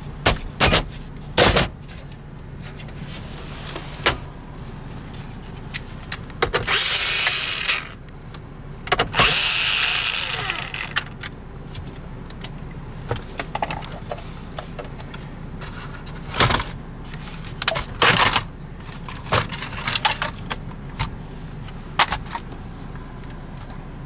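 Plastic dash trim of a 2014 Ford Escape being pried off around the center screen: sharp snaps and clicks of trim clips letting go, scattered through, with two longer noisy bursts of a second or so, about seven and ten seconds in.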